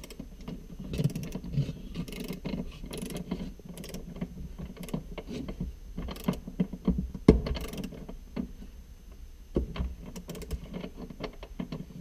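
Ratcheting torque wrench clicking in short runs as it tightens a seatbelt buckle's floor anchor bolt, with a few louder knocks of the tool.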